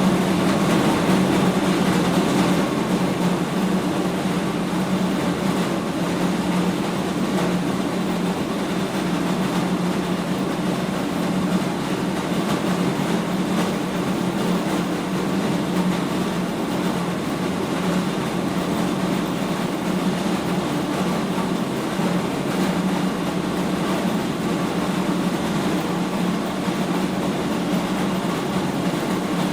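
Animal feed mill machinery running steadily: a dense, continuous mechanical rumble with a steady low hum under it.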